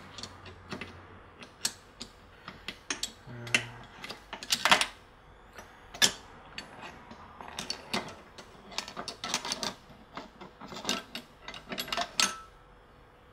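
Irregular metallic clicks and clinks of a gearbox shift fork being worked into place on the third-and-fourth gear selector sleeve, metal parts knocking against the gear shafts and case, with a louder cluster of clicks just before the middle.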